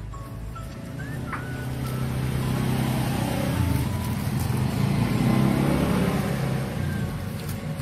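Motor vehicle engine passing close by, its low hum swelling to a peak midway and then fading.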